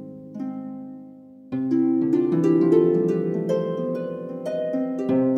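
Background music: ringing notes fade to a brief lull, then a denser run of notes comes in about a second and a half in.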